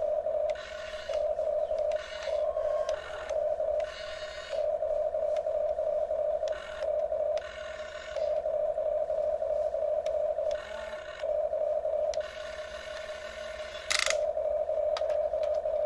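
Huina 1350 RC excavator's electric motors and gearboxes whining as it swings its arm and dumps a bucket of dirt. A steady mid-pitched hum drops out every second or two while higher gear whines take over. A sharp click comes near the end.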